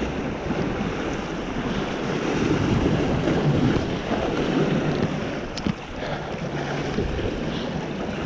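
Sea waves washing and splashing against the boulders of a rocky breakwater, with wind buffeting the microphone. A single sharp click about five and a half seconds in.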